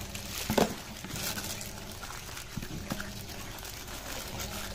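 Clear plastic bag crinkling and rustling as it is handled, with a couple of louder crackles about half a second in.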